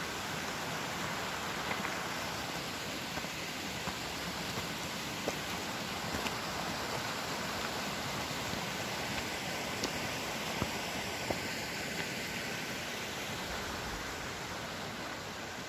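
Steady rushing noise of a handheld phone being carried along a stony mountain trail, with a few faint scattered clicks.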